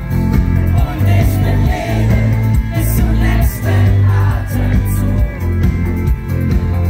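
Live pop-rock band playing at full volume, with a heavy bass line, drums with cymbal hits, electric guitar and a voice singing, heard from within the audience.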